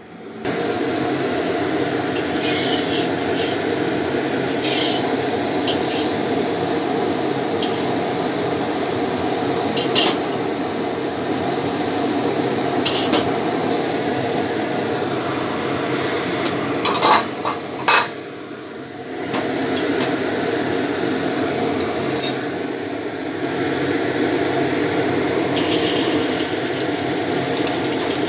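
Steady rushing noise from a gas stove heating a wok, broken by a few sharp metal clicks and clinks. A pair of loud clicks comes about seventeen seconds in, and the noise dips briefly after them before returning.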